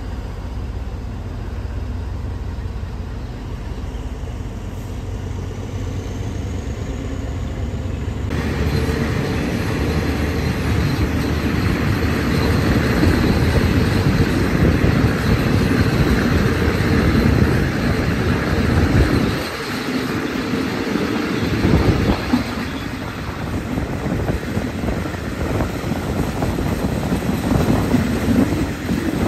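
Moving passenger train heard from inside a carriage with open windows: a steady rumble of wheels on the rails. About eight seconds in, a louder rush of wind and running noise sets in and continues.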